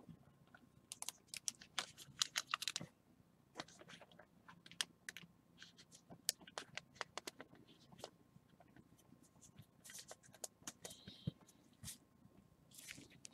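Light, scattered clicks and taps of trading cards and packaging being handled by gloved hands on a table, with short crinkles of a foil wrapper toward the end.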